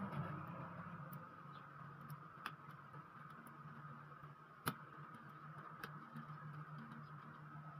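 Faint ticks and light clicks of a small screwdriver working the screws on a laptop motherboard, with one sharper click a little past halfway, over a steady low hum.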